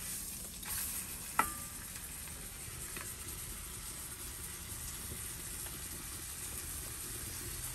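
Sirloin steak sizzling steadily in a cast-iron skillet over a wood fire, with a sharp click about a second and a half in and a fainter one near three seconds.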